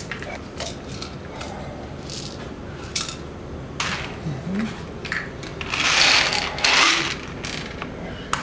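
Plastic pill bottle being handled and opened: the cap clicks and scrapes, and pills rattle. The loudest part is a longer rattle about six seconds in.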